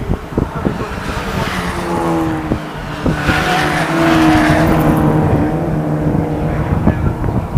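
Several Ford Fiesta race cars' engines at racing speed through a corner, their notes rising and falling with the throttle. The sound swells as the cars go by, loudest about four to five seconds in.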